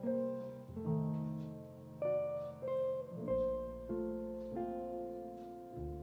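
Soft background instrumental music: a slow melody of struck notes, about one a second, each ringing and fading over held lower notes.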